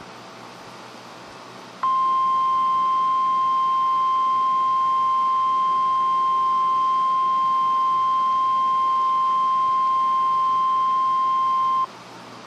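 NOAA Weather Radio's 1050 Hz warning alarm tone: one loud, steady high beep held for about ten seconds, starting about two seconds in and cutting off abruptly, over faint radio hiss. The tone signals that a warning message is about to be broadcast.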